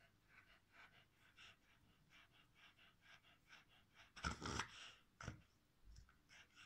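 Cavalier King Charles spaniel panting quickly and faintly, about four breaths a second, with a louder burst of breath about four seconds in.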